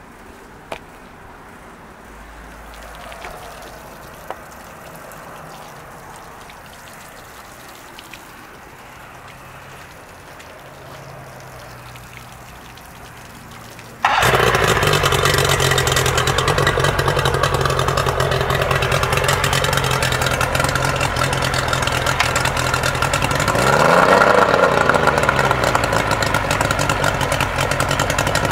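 Faint handling noise with a few light clicks. About halfway through, a Mercury 60 outboard is heard running steadily on a garden-hose water supply. Near the end it revs up briefly and drops back.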